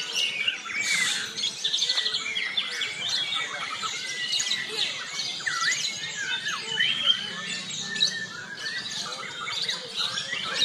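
Several caged white-rumped shamas (murai batu) singing at once: a dense, unbroken overlap of whistles, sliding notes, chirps and quick repeated trills.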